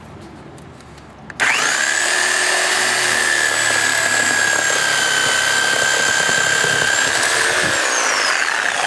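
Reciprocating saw starting about a second and a half in and running steadily, its blade cutting through a car tire with steel belts inside, a high whine over the rasp of the blade. The whine drops a little in pitch near the end.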